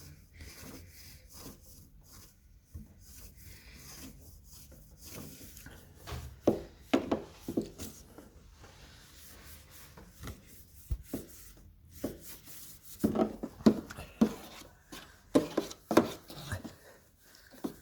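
Irregular rubbing and scraping with clusters of sharp knocks, from hands-on cleaning work on an air conditioner unit. Faint at first, with louder bursts of knocking about six seconds in and again from about thirteen seconds on.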